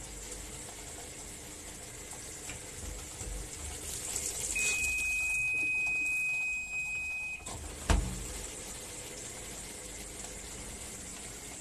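Midea fully automatic washing machine filling with water, a steady hiss of water running in. It swells for a few seconds midway under a steady high tone, then a single sharp knock comes about eight seconds in.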